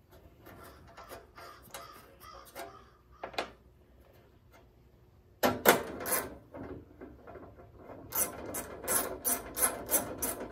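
Hand socket ratchet clicking, with metal tools clinking, as sockets are tried on an engine shroud bolt. Scattered clicks at first, a louder clatter about halfway through, then a run of quick ratcheting clicks near the end.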